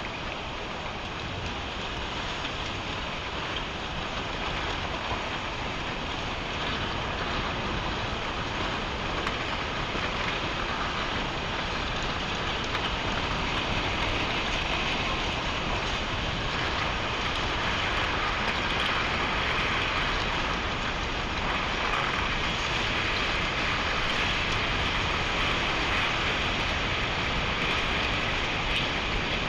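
Tsunami floodwater rushing and churning through streets, carrying cars and boats: a steady roar that grows slowly louder.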